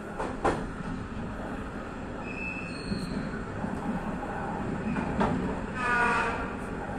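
Passenger train running on jointed track: a steady low rumble from the wheels and running gear, with pairs of quick clicks as a bogie's wheels cross a rail joint near the start and again about five seconds in. Brief wheel squeals come in, a thin high one around two to three seconds in and one with several ringing tones about six seconds in.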